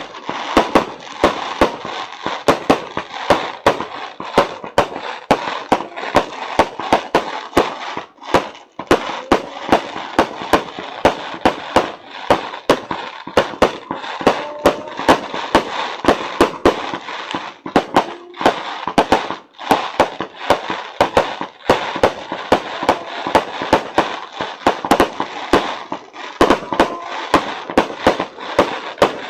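Fireworks finale: a dense barrage of sharp bangs, about three a second, over a continuous crackling hiss.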